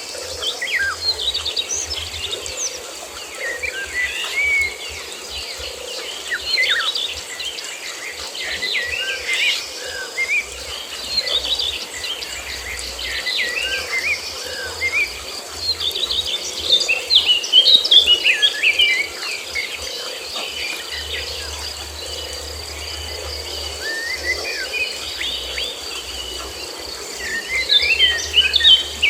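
Many birds chirping and twittering in quick, pitch-sliding calls throughout, over a steady high insect drone.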